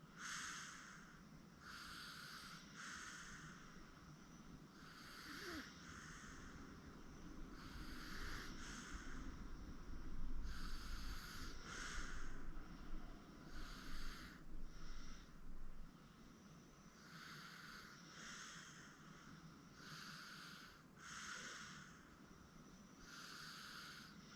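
Sleeping 8-month-old baby snoring softly, each breath in and out a short hiss, coming in pairs about every three seconds. A low rumble runs for a few seconds in the middle.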